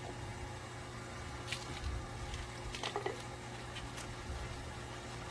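Hands working shampoo lather into a wet Jindo's fur, with a few short wet squishes over a steady low hum.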